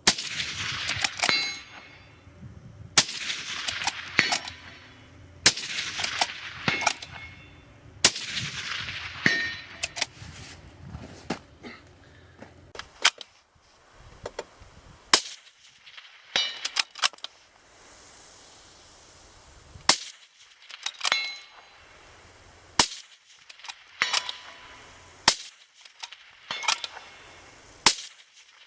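Suppressed bolt-action rifle (Tikka T3X action with an Ase Utra SL5i suppressor) firing a series of single shots a few seconds apart. Each shot is followed by smaller clicks and short metallic pinging.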